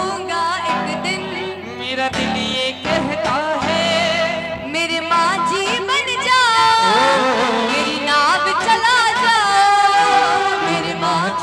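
A woman singing a Hindi devotional bhajan live into a microphone, drawing out long ornamented notes with wavering pitch over a steady sustained accompaniment.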